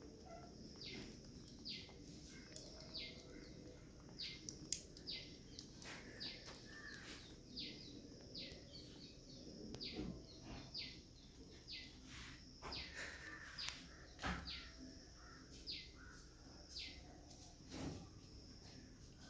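A small bird chirping repeatedly and quietly, each chirp a short note that falls in pitch, repeated more than twenty times at a fairly even pace.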